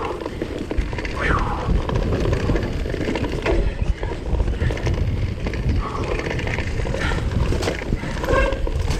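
Mountain bike rolling over a rough trail with a steady rumble and rattle, and its brakes squealing in short bursts: a brief squeal about a second in and a pitched brake squeal starting near the end.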